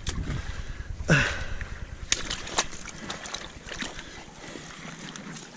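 Hands rummaging among rocks and kelp in shallow seawater, with water sloshing and a couple of sharp clicks of stone knocking on stone about two seconds in. A short grunt-like voice sound about a second in.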